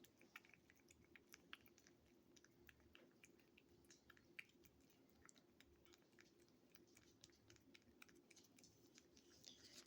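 Faint, irregular wet clicks of a cat licking a lickable squeeze-tube treat, many small smacks a second apart or less.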